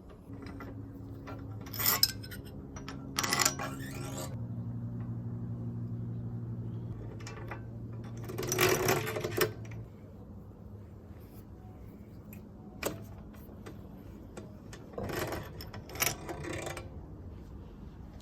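Metal tools and bike parts clinking and clattering in several short bursts, over a low steady hum that changes about four seconds in and stops about ten seconds in.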